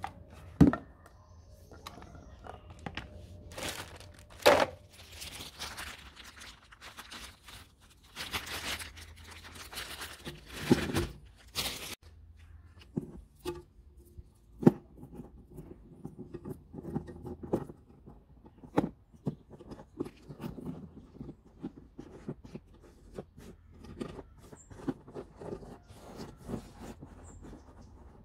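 Hands unpacking and handling chainsaw parts. There is a stretch of plastic wrapping rustling and tearing, with hard knocks as parts are handled, then the loose saw chain's metal links clicking and rattling.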